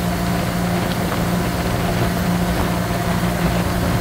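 Runabout motorboat's engine running steadily under way, a constant low drone with an even rush of wind and water over it.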